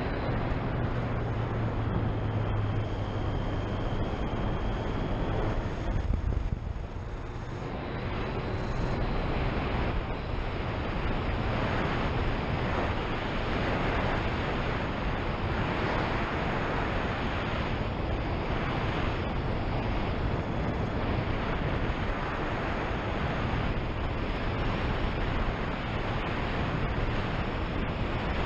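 Wind rushing over a helmet-mounted microphone at riding speed, with a Triumph Street Triple's inline-three engine running underneath. The engine note is steady for the first few seconds, drops away briefly about six seconds in, then the wind noise builds again.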